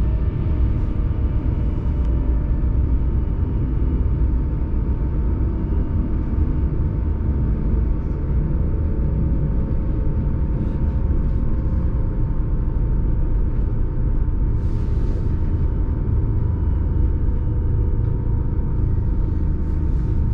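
Munich tram running between stops, heard from inside the car: a steady low rumble of wheels on rails with a thin steady whine over it, and a short hiss about fifteen seconds in.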